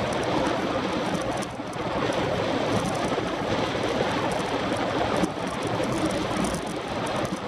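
Wind rushing over an action camera's microphone on a track bike moving at about 28 mph, together with tyre noise on the concrete track, a steady rush with two brief dips.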